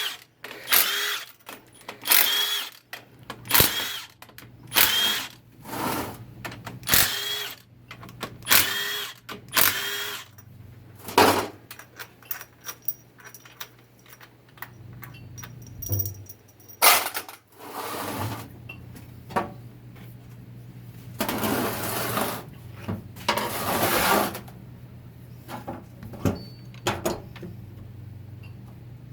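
Handheld power tool run in short bursts, about once a second for the first ten seconds, then in two longer runs later on, with clicks and clinks of parts between them, over a steady low hum.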